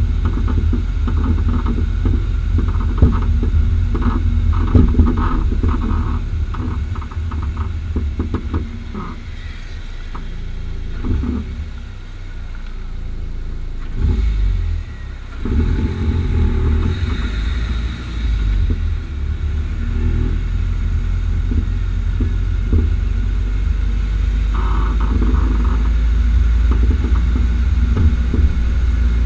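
Car driving with a steady low road rumble, broken by frequent sharp pops and knocks from the front right Bilstein PSS9 coilover as it works over the road surface. The knocks come in clusters, thickest in the first third and again near the end. Their cause has not been found despite two repairs.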